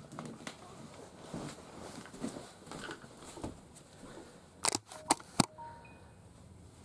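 Faint rustling and handling of a plastic toy figure, then three sharp clicks close together about five seconds in.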